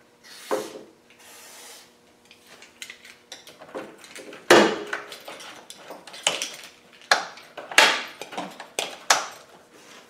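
Krown aerosol rust inhibitor hissing briefly into a Land Rover Defender rear door lock, then a run of sharp metallic clicks and clunks as the lock mechanism is worked. The lubricant frees the sticking lock.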